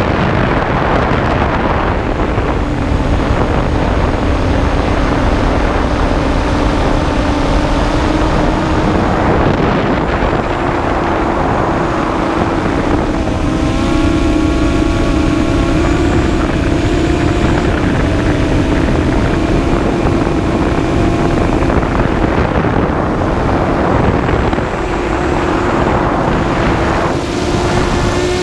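Six-inch FPV quadcopter's motors and propellers whining in flight, recorded from the onboard camera, the pitch shifting slightly with throttle, over a steady rush of wind and prop wash on the microphone.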